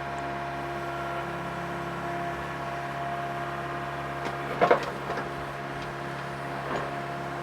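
Mini excavator's diesel engine running at a steady speed, a constant even hum, with one brief louder sound about four and a half seconds in.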